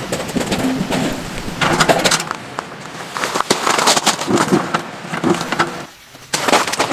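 Heavy rain pattering hard on a close surface, a dense, irregular clatter of drops that briefly drops away about six seconds in.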